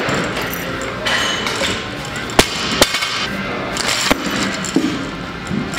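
Sharp metallic knocks of a loaded barbell whose unclipped bumper plates rattle on the sleeves as it is moved, three of them about two and a half, three and four seconds in, over gym background noise.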